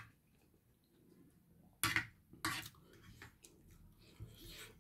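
Spoon and fork clinking and scraping against a plate while eating, with two sharper clinks about two seconds in and faint softer utensil sounds after.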